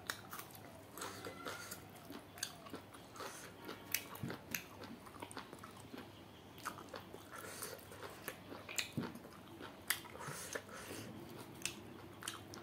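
Close-miked person chewing and biting cooked duck, with irregular wet mouth clicks and smacks several times a second.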